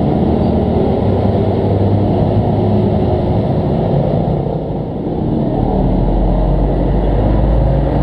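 Steady low rumble of motor traffic.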